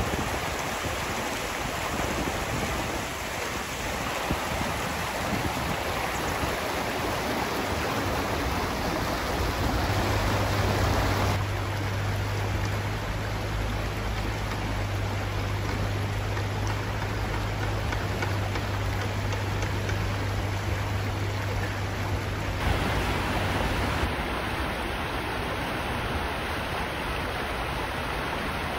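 Shallow river rapids rushing over stones: a steady wash of running water, with a low steady hum beneath it through the middle stretch.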